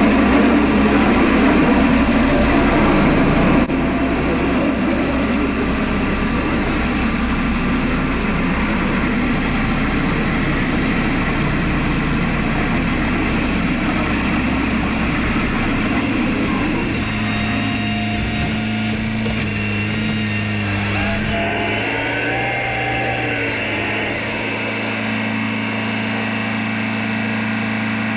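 Kubota M6060 tractor's four-cylinder diesel engine running steadily under way, a little quieter after about four seconds.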